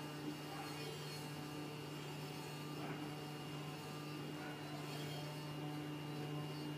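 CNC foam cutting machine running while its head cuts a block of PE foam: a steady hum with a constant tone.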